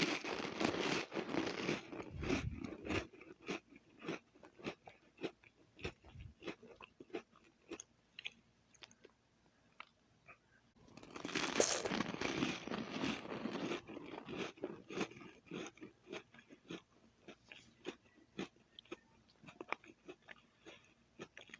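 Soda crackers being bitten and chewed close up: a crisp bite right at the start and another about eleven seconds in, each followed by a few seconds of dense crunching that thins to slower, separate chewing crunches.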